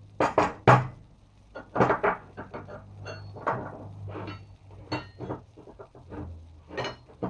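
Hand-forged iron bars of a fireplace crane being set down and slid into place on wooden boards: a series of knocks and clatters, the loudest about half a second in, a few with a brief metallic ring.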